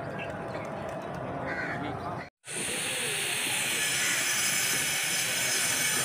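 A crow cawing a couple of times over steady background noise. About two seconds in the sound cuts out briefly, then a louder, steady hiss takes over.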